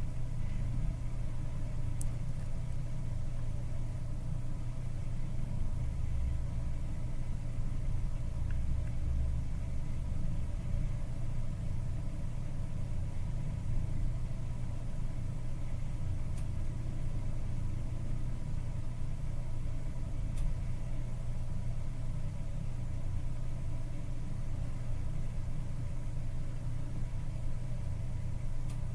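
Steady low hum of a blower running at a micro-soldering bench, with a few faint clicks.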